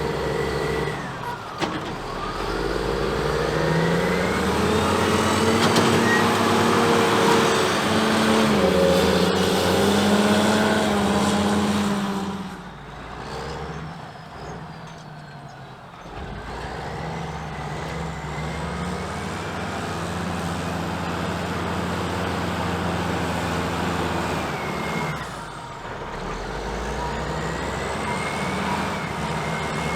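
Diesel engines of a Caterpillar 627G twin-engine scraper working hard under load. The revs climb in the first few seconds, ease off about twelve seconds in, and come back up about four seconds later, with a brief dip near the end. A thin high whine rises and falls with the revs.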